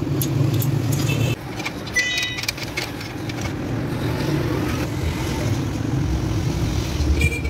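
Motor vehicle engine noise with a steady low rumble, and a short horn toot about two seconds in.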